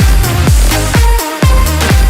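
Electronic dance music track: a steady kick drum about twice a second under sustained synth chords.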